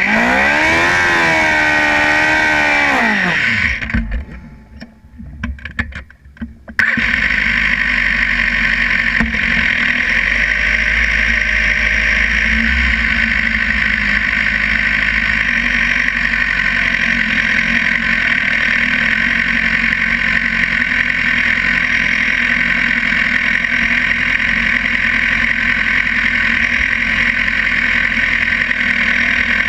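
Drag-racing sportbike engine revved up and down several times. The sound drops out briefly about four seconds in, then the engine idles with a steady drone as the bike rolls slowly toward the line.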